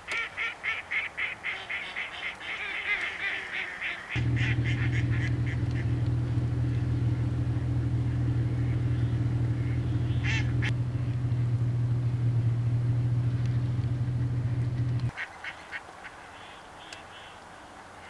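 Ducks quacking in quick runs of calls for the first four seconds. Then a loud, steady low hum takes over for about eleven seconds, with a short bird call around the middle, and stops suddenly; faint quacking returns near the end.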